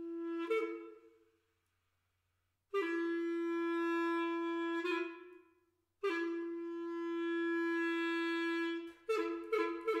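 Solo clarinet playing three long held notes, each ending with a brief higher note and fading away into a short silence. About nine seconds in it breaks into a fast repeated two-note figure, about five notes a second.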